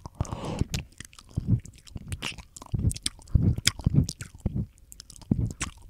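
A person chewing and biting meat close to the microphone, with irregular mouth clicks and smacks a few times a second.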